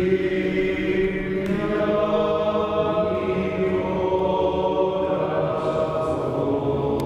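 Liturgical chant sung by a group of voices, slow and sustained with long held notes, during the communion rite of a Catholic Mass.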